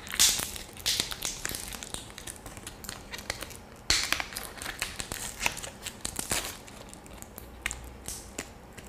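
Retail packaging of a new SD card being opened by hand: irregular crinkling, tearing and crackling, with sharp clicks and a few louder rustles.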